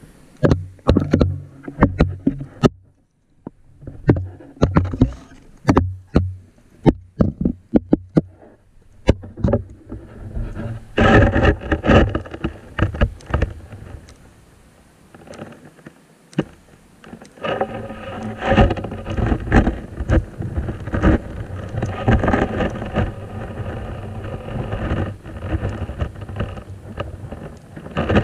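Muffled underwater sound picked up by a camera in a waterproof case submerged in a river. A string of knocks and clicks comes first, then, from about eleven seconds in, dense rushing, rumbling water noise.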